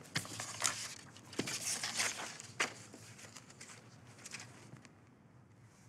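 Several choir members turning the pages of their sheet-music folders: short rustles of paper and light taps, busiest in the first three seconds, then thinning out.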